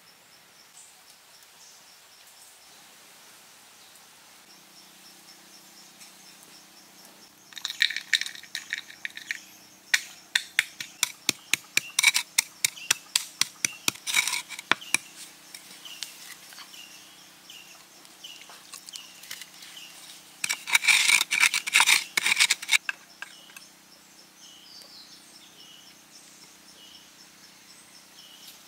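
Hard objects clicking and tapping sharply. A dense spell of quick clicks comes first, then a run of separate taps at about four a second, then a second dense spell of clicks.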